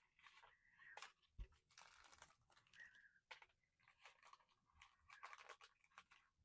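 Faint crinkling, tearing and clicking of a plastic blister pack being opened and handled, in short irregular bursts with pauses.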